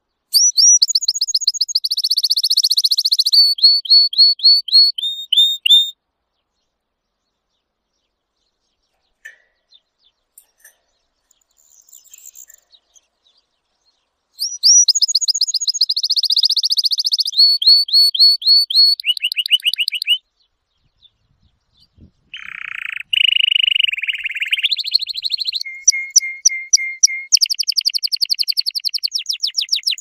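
Domestic canary singing in fast trills of repeated high notes, switching from one trill to another. The song comes in three bouts, with a long pause after the first and a short one before the last.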